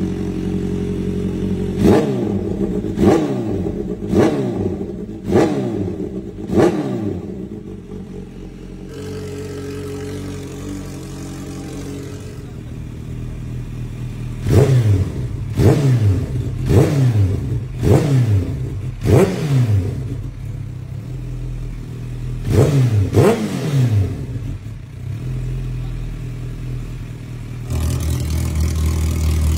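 Kawasaki H2's supercharged inline-four engine idling and revved in sharp throttle blips through loosely held slip-on aftermarket mufflers, here an Akrapovic can among them, each blip jumping up in pitch and falling straight back. Five quick blips come about a second apart, then the engine idles before a second string of five and a pair more; near the end the idle turns louder and deeper.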